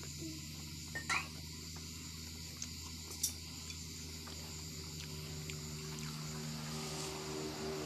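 A steady electrical hum and hiss, with a few brief clicks and taps about a second in and at about three seconds as fingers tear roti and scoop semolina on a steel plate.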